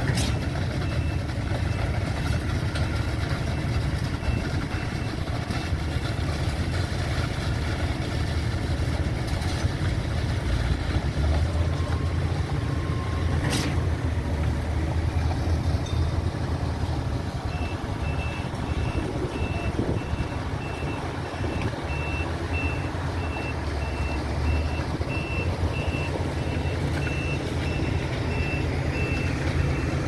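Heavy diesel truck engine running steadily, driving the Schwing SX 42m truck-mounted concrete pump while it pumps concrete. A vehicle's reversing alarm beeps about twice a second over it, at the start and again through the second half, and a single sharp click sounds about midway.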